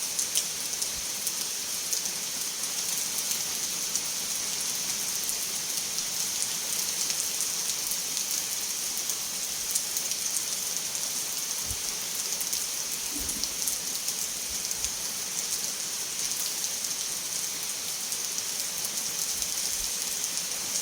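Steady rain falling on a surface, an even hiss with many fine drop patters throughout.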